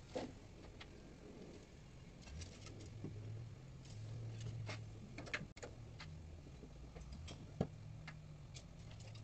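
Faint, scattered clicks and light knocks of someone handling things close by, with a sharper tap about seven and a half seconds in, over a low hum that comes and goes.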